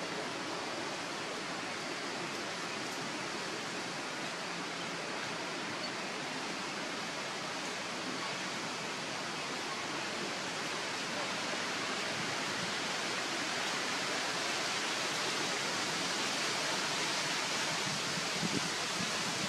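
Steady, even background hiss that grows slightly louder toward the end, with no animal calls or other distinct sounds.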